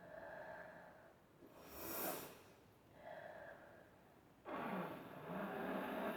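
A person sniffing and snorting through the nose while inhaling pepper to provoke a sneeze, with one sharp, hissy sniff about two seconds in. About four and a half seconds in, a louder steady rushing noise starts abruptly and keeps going.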